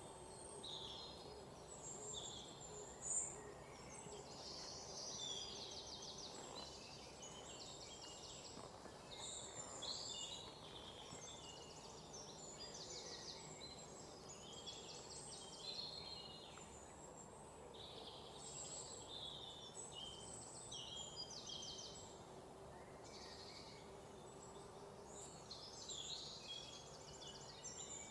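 A dawn chorus of many birds chirping and calling over one another, with short notes and fast rattling trills. Underneath runs a faint steady hum, and one brief louder sound stands out about three seconds in.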